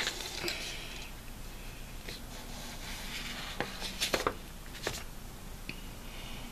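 Felt-tip marker drawing on a paper plate: faint scratching strokes, with a few light clicks scattered through.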